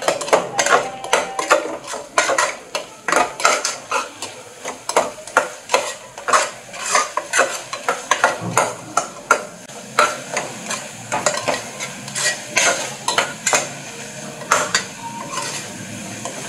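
A spoon stirring a wet onion, tomato and mushroom masala in an aluminium pressure cooker, scraping and knocking against the pot a few times a second at an irregular pace, over a light sizzle of frying.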